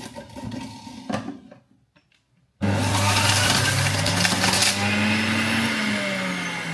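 Countertop blender switching on suddenly about two and a half seconds in, after a few clicks and a moment of quiet, and running loudly; its motor hum rises in pitch and then sinks back as it blends.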